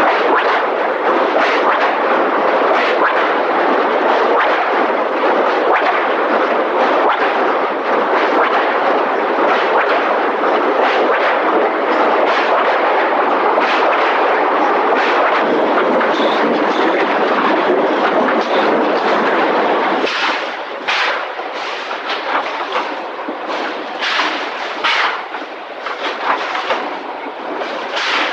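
Press-shop machinery handling sheet steel: a loud, continuous mechanical rattling noise, which about twenty seconds in drops in level and gives way to a series of sharp metallic bangs, as of presses stamping steel body panels. The film's soundtrack runs at one and a half times normal speed.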